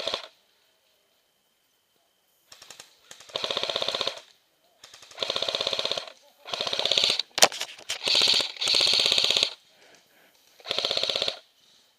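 Airsoft electric gun firing on full auto close by, in about five bursts of roughly a second each with short pauses between. A single sharp crack is heard a little past the middle.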